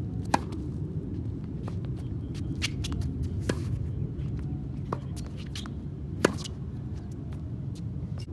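Tennis ball struck by racquets in a rally on a hard court: two loud pops of the near player's shots, about a third of a second in and just after six seconds, with quieter pops of the far player's shots and ball bounces between, over a steady low background noise.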